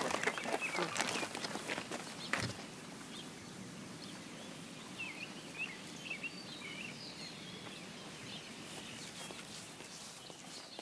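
Quiet outdoor ambience with short bird calls from about five seconds in. A few soft knocks and rustles come in the first two seconds.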